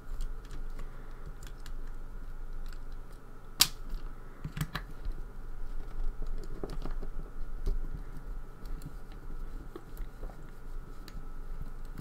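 Small screwdriver turning screws out of the back of a lock: scattered light metallic clicks and scrapes, with one sharp click about three and a half seconds in.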